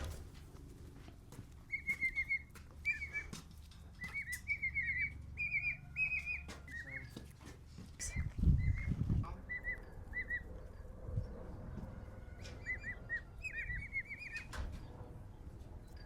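Baby emu chicks peeping: short whistled chirps in quick runs of three to six, repeated over and over. A muffled low thump about halfway through.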